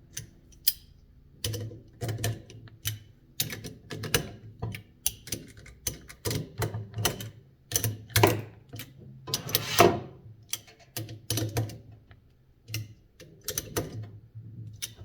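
Irregular metallic clicks, knocks and clatter of a box fan motor and its small parts being handled and worked on.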